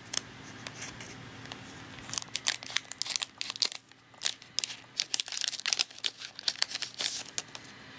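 Foil trading-card booster pack crinkling as it is handled and torn open by hand, a quick run of sharp crackles starting about two seconds in.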